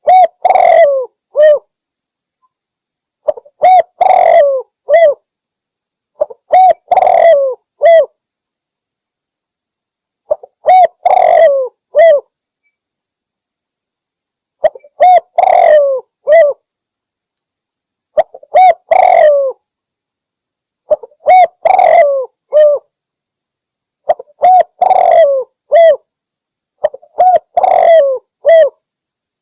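Spotted dove (derkuku) cooing: a short phrase of several coos, repeated nine times about every three to four seconds with pauses between.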